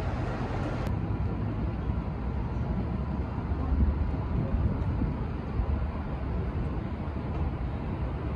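Steady low rumble of city street traffic, cars running along a wide multi-lane road.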